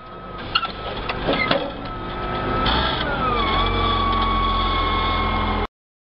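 Tractor engine running behind a reversible plough, with a steady high whine over the engine and a few sharp clanks in the first two seconds. About three seconds in the whine glides down and the engine note deepens and grows louder, then everything cuts off suddenly near the end.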